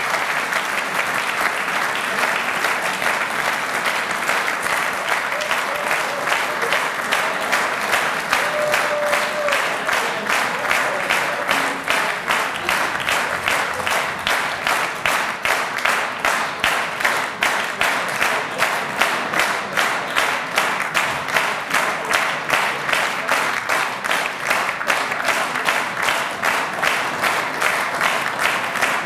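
Applause from a hall of several hundred people, which about midway falls into steady rhythmic clapping in unison, a little over two claps a second.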